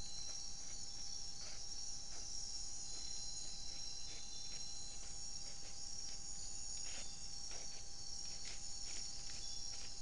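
Chorus of crickets and other insects: dense, steady, high-pitched trilling, with a fainter steady lower tone and scattered soft ticks.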